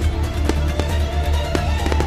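Music with a heavy steady bass, over the sharp bangs of fireworks shells bursting, about one every half second.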